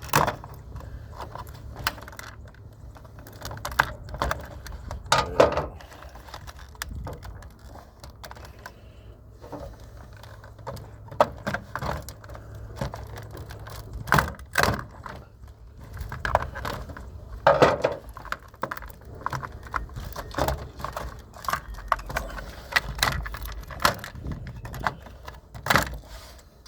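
Hard plastic parts of an iRobot robot vacuum clicking, knocking and rattling as it is pried apart and handled, with irregular sharp clicks and a few louder knocks, over a low steady hum.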